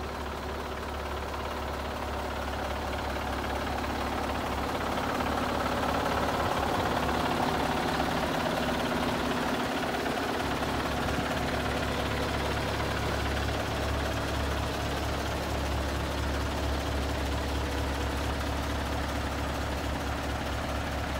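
Scania R142H truck's 14-litre V8 diesel idling steadily.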